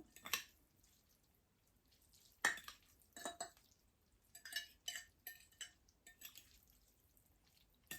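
Quiet eating sounds from a bowl of ramen: scattered short clicks and clinks of utensils against the dish, with wet mouth noises. The sharpest clink comes about two and a half seconds in, and a quick run of small clicks follows around the middle.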